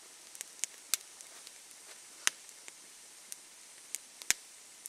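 Small wood campfire crackling: irregular sharp pops and snaps, the loudest about two and four seconds in, over a faint steady hiss.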